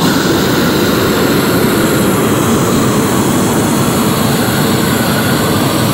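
Propane roofing torch burning steadily at full flame, a loud even rush, as it heats torch-down roofing membrane to melt it for bonding. It starts and stops abruptly.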